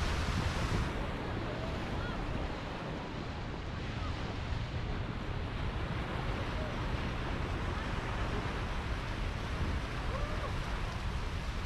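Small waves breaking and washing up a sandy shore, a steady surf hiss that is brightest in the first second, with wind rumbling on the microphone.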